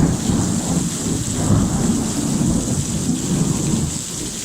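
Thunder rolling, a loud low rumble that eases off near the end, over the steady hiss of torrential rain.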